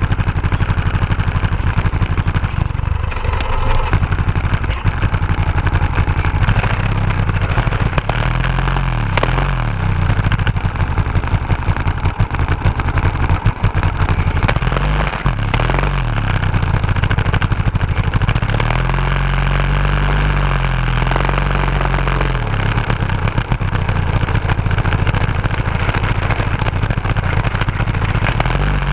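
Go-kart's 10 hp snow blower engine, a small single-cylinder four-stroke, running under way, its speed rising and falling several times as the throttle is opened and eased off.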